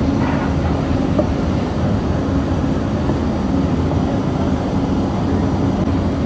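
Steady low rumble of commercial kitchen equipment, running without a break.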